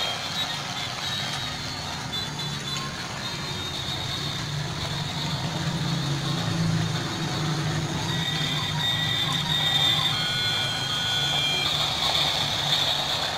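Battery-powered toy army train running on its plastic track: a steady motor hum with the wheels running over the rails, and high electronic tones from the toy coming and going in the second half.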